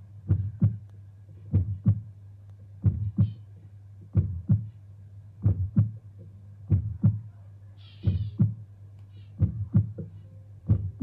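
Show soundtrack of a slow heartbeat: paired low thumps, lub-dub, repeating about every second and a quarter over a steady low hum, with a brief hiss about eight seconds in.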